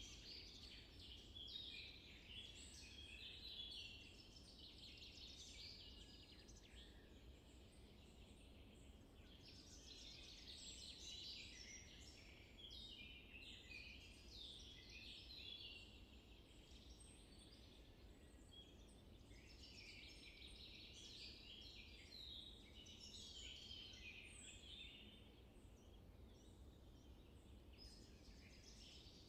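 Faint chorus of small birds chirping in many quick short notes, over a low steady background hum.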